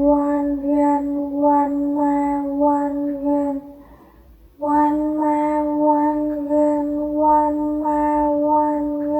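A high, child-like voice singing a short chant on a nearly steady pitch, in rhythmic syllables. One phrase ends a little before halfway, and after a brief pause the phrase starts again.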